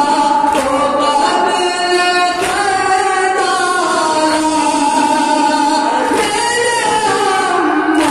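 Noha, a Shia mourning lament, sung unaccompanied by a young male reciter through a microphone and PA. Mourners beat their chests in time with it every couple of seconds.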